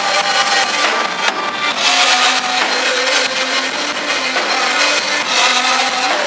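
Live church worship music: a band with drum kit and electric keyboard playing, with a man singing into a microphone over it in long held notes. Steady cymbal hiss fills the top.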